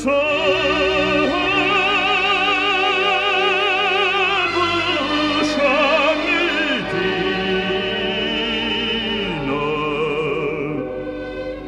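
Operatic solo voice singing long, held notes with wide vibrato over musical accompaniment, getting a little quieter near the end.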